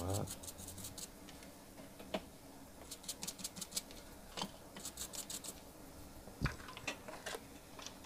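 A small metal hand tool scraping at a circuit board in short bursts of rapid scratching, with a few separate light taps of tools on the board and bench, the sharpest about six and a half seconds in. The scraping comes from clearing solder mask off the blue PCB around damaged tracks.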